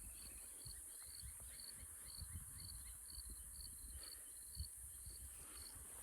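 Cicadas droning in a steady high-pitched chorus, with a short higher chirp repeating about twice a second over a faint low rumble.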